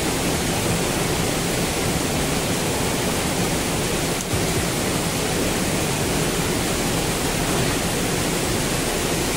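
Steady rushing of a small rain-swollen stream mixed with heavy rain, an unbroken noise of water.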